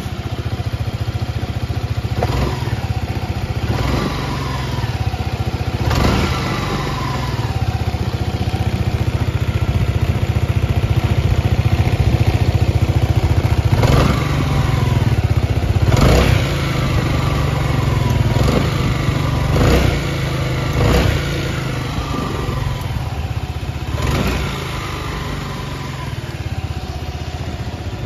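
Honda ADV350 scooter's single-cylinder four-stroke engine idling through its stock exhaust, with the throttle blipped briefly again and again.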